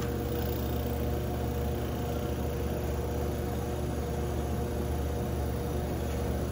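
1953 Fedders window air conditioner running, its compressor and blower fan together: a steady low hum under an even whir of moving air.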